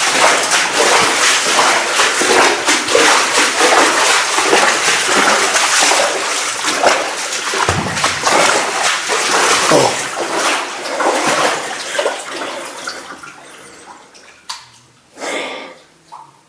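Hurried footsteps splashing and sloshing through shallow water, loud and irregular, dying away over the last few seconds with one short splash near the end.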